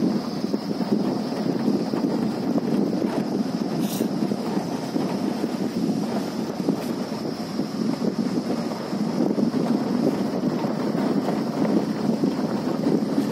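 Wind buffeting the phone's microphone: a steady, fluttering rumble, with a faint steady high hum underneath.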